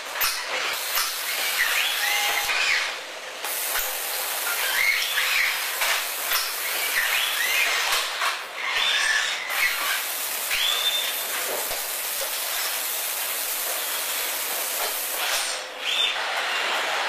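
Industrial robots in an automated car-body production line: a steady, loud machine hiss with short whining squeals that rise and fall every second or so.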